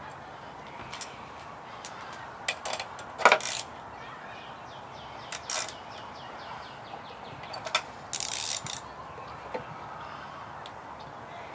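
Hand work on a lawn mower: scattered metal clicks and knocks, a run of fast ratcheting ticks about halfway through, and a short scraping burst near the end.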